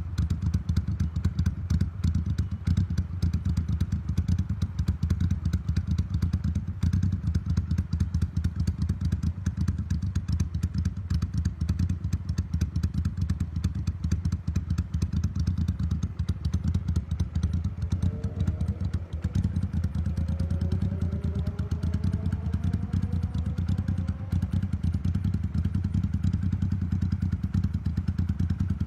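Motorcycle engine idling steadily on an aftermarket Mikuni TM40 carburetor, with an even, rapid beat.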